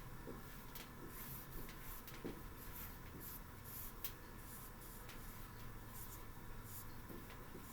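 Faint pen strokes of writing on a board: short, irregular scratches and squeaks as words are written out.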